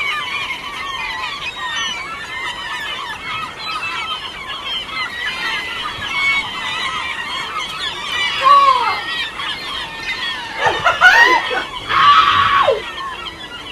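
A flock of seagulls calling, many cries overlapping, with a few louder drawn-out gull cries standing out in the second half.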